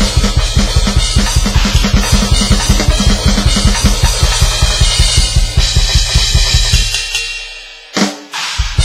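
Alesis electronic drum kit (DM10 module with Nitro pads) played as a fast, steady bass-drum beat, about eight kicks a second, under snare and cymbals. The playing dies away about seven seconds in, then a single loud hit lands and the beat starts again near the end.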